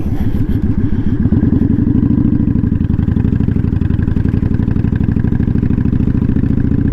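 Kawasaki Vulcan 900 Custom's V-twin engine running under way. The pitch rises a little over the first second or so and then holds steady.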